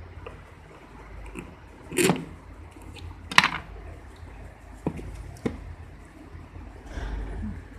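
Cardboard phone box being handled by hand: scattered light knocks and rustles as it is turned and moved, the loudest about two and three and a half seconds in, over a low steady hum.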